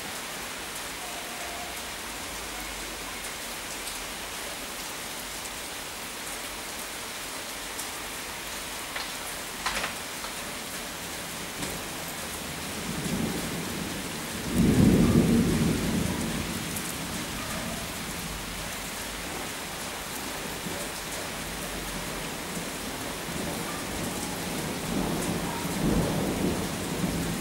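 Steady rain falling, with a low rumble of thunder about halfway through and a weaker rumble near the end.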